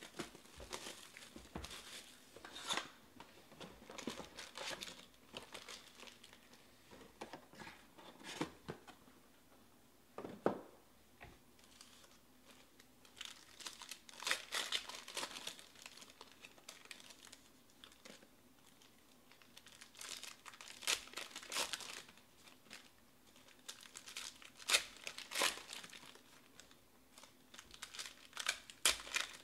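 Foil wrappers of Panini Prizm baseball card packs crinkling and tearing as the packs are torn open by hand, in irregular bursts with short pauses.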